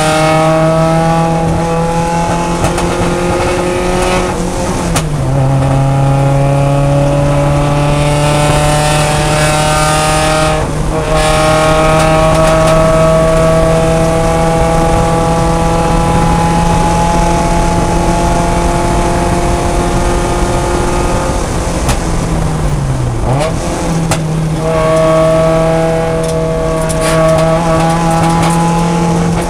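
Mazda Miata race car's engine heard from inside the cockpit at full throttle, its pitch climbing through the revs with upshifts about five and eleven seconds in. Near the end it drops off as the car slows and changes down, then climbs again as it pulls away.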